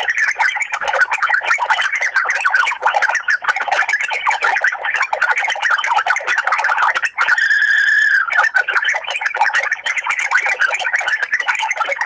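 Rapid, erratic chirping and clicking noises coming through a telephone line, thin and narrow like phone audio. About seven seconds in, a steady high tone sounds for about a second before the chirping resumes.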